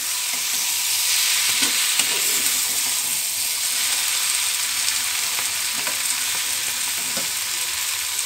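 Flat beans (shim) sizzling as they fry in a small iron karahi, with a steel spatula scraping and knocking against the pan a few times as they are stirred.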